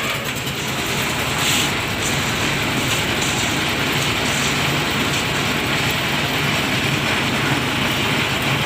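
Lift concrete mixer machine running steadily, a continuous mechanical rumble with a few light rattling clicks in the first half.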